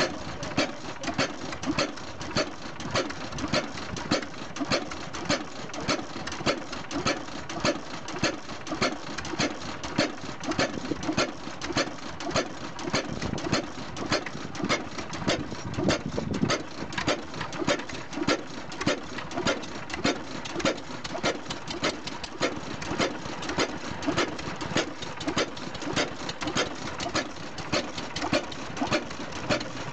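A 6 HP Amanco single-cylinder stationary oil engine running steadily. It gives a regular beat of sharp strokes with lighter mechanical clicks between them.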